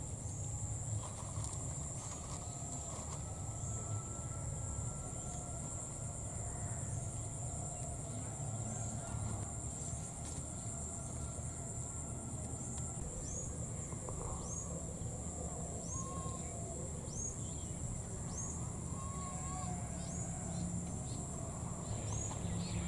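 Wild outdoor ambience: a steady high-pitched insect drone with a short chirp repeating about once a second, faint distant bird calls and a low rumble underneath.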